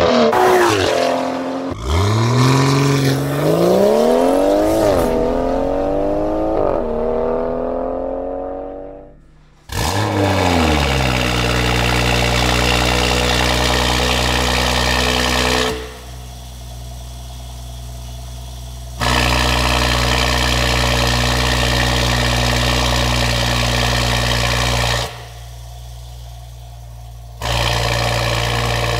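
BMW X3 M40i's B58 turbocharged straight-six through a valved sport exhaust with free-flow downpipes. It is revved up and down several times and fades out. Then it starts with a quick flare that falls to a steady idle, and twice the idle drops abruptly in volume for a few seconds and comes back, with no change in pitch, as the exhaust valves close and reopen.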